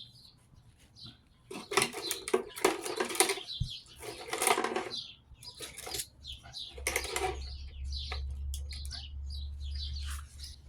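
Scrap copper windings being handled onto a scale: several rustling, clattering bursts. Birds chirp in the background, and a low hum comes in over the last few seconds.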